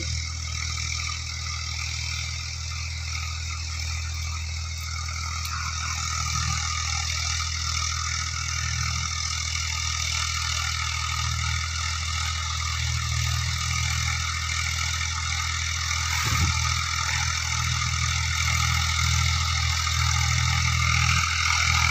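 Old tractor engine running steadily at an even speed, gradually getting a little louder.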